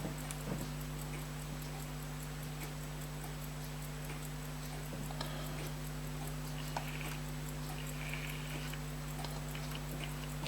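Steady low hum with a faint, even ticking at about four to five ticks a second, and a few small clicks.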